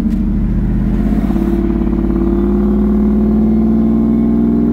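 Ford SVT Lightning's supercharged 5.4-litre V8 heard from inside the cab while driving, its note rising slowly and steadily as the truck accelerates.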